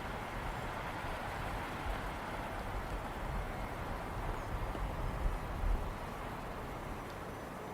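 Steady outdoor ambience of rain hissing, with low gusts of wind rumbling in the middle.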